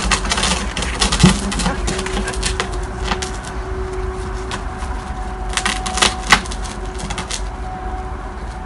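Airedale Terrier puppies scampering and playing on paving: scattered light clicks and taps, with a sharper knock about a second in and another about six seconds in, over a steady low background hum.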